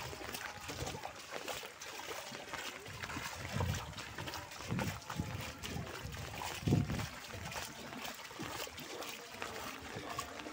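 Muddy floodwater running and trickling over a flooded lane, a steady watery hiss, with a few dull low thumps in the middle, the loudest about two-thirds of the way through.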